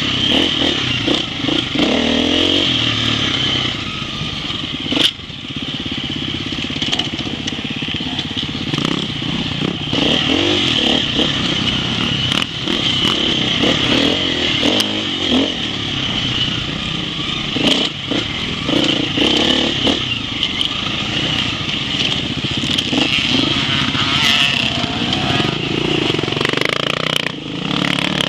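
Off-road enduro motorcycle engine running hard on a rough dirt trail, its revs rising and falling over and over, with frequent sharp knocks and clatter from the bike and the ground.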